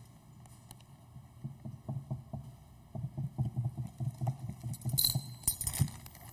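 Glass jar filled with golf balls, marbles and sand being handled and jostled on a table: a run of soft, irregular knocks and taps. Near the end comes a brief crinkle of the plastic zip-top bag of sand.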